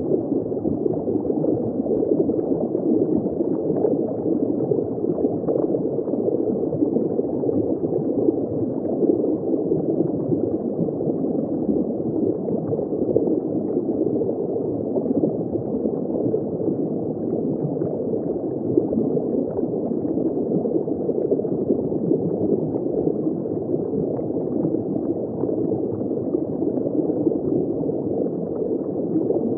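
Steady underwater water noise: a dense, even bubbling hiss with faint scattered ticks and no rhythm.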